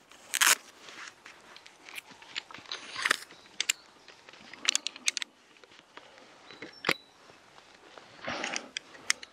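Shock-corded pole frame of a folding camping chair clicking and clinking as it is handled, with a few short rustles and scrapes as a strap comes off the bundle.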